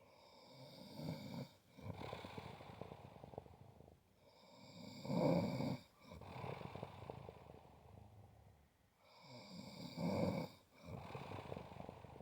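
Snoring in slow, regular breaths: a loud snore about every four to five seconds, each followed by a softer, rasping out-breath.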